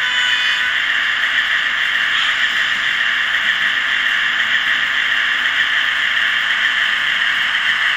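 Model CC 68000 diesel locomotive running slowly with a train of hopper wagons: a steady, even running noise with a faint constant whine.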